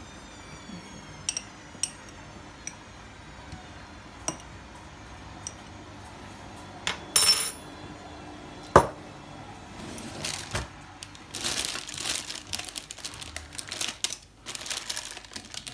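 Glassware handled on a kitchen worktop: scattered small clinks and clicks, a brief noisy rattle about seven seconds in, then one sharp knock as a glass is set down. After that come several seconds of crinkly rustling.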